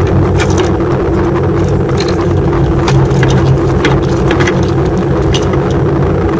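A motor running steadily with a constant low hum, overlaid by scattered light clicks and rattles from handling the wiring.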